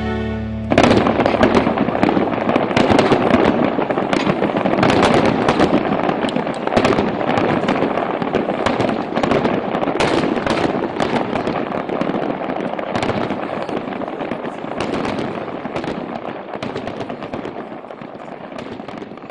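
Fireworks popping and crackling in a dense, continuous stream, slowly fading toward the end.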